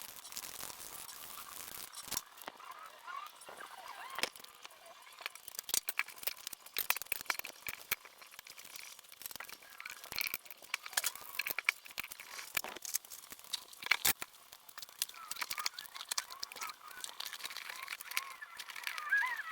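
Irregular light clicks, taps and scrapes from hand work, with faint bird chirps, strongest near the end.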